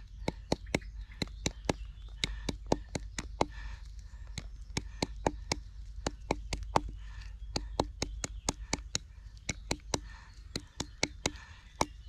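A short wooden stick tapping rapidly along a green plant stem laid on a rock, about four dull knocks a second. It is crushing the stem so that the outer fibre can be split from the pith for cordage.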